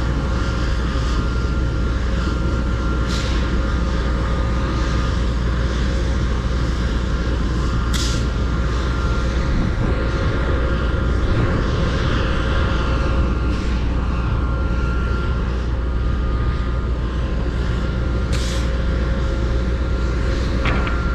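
Semi truck's Cummins X15 diesel running steadily: a low, constant drone with a faint steady whine above it. A few short hisses break in, about three seconds in, around eight seconds and near the end.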